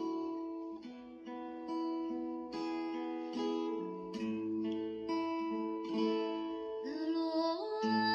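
Background music on plucked acoustic guitar: picked notes at an even pace, with a sliding note near the end.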